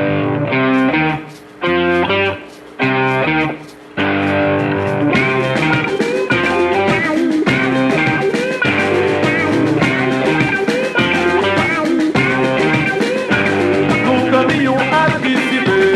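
Music: a guitar-led band plays a song intro, with chords that stop and start for the first few seconds, then the full band comes in about four seconds in.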